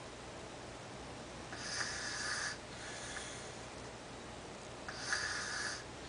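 Sleeping toddler snoring through an open mouth: two loud snoring breaths about three seconds apart, each about a second long and each followed by a fainter breath.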